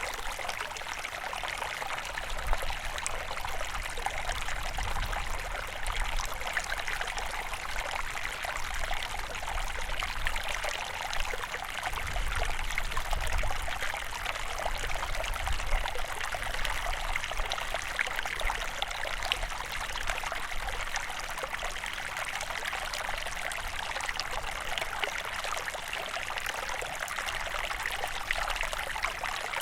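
River water flowing steadily, a continuous rushing with a low rumble that swells and fades at times.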